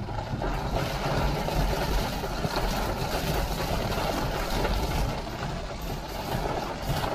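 BMW 550i GT with its twin-turbo V8 running in heavy rain: a steady wash of rain and water noise over a low engine hum.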